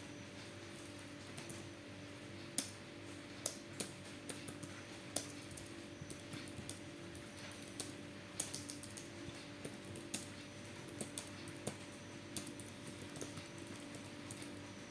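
Typing on a computer keyboard: irregular key clicks, some louder than others, starting about a second and a half in, over a faint steady hum.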